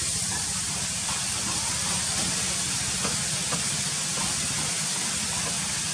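Steady, even hiss with a low rumble underneath and a few faint ticks, unchanging throughout.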